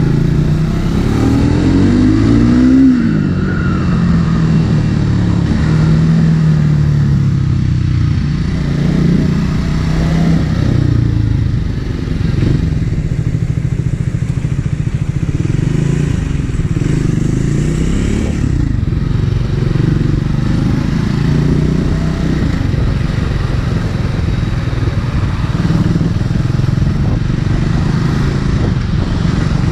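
Triumph Speed 400's single-cylinder engine and exhaust while riding, the pitch rising under acceleration in the first few seconds, then dropping and climbing again several times as the revs change.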